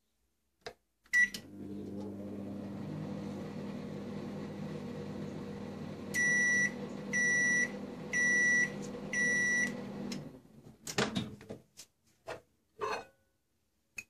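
Samsung MG23F302TAK microwave oven started with a short beep, then running with a steady hum while it heats. Four beeps near the end mark the finished cycle, and the door clicks open after the hum stops.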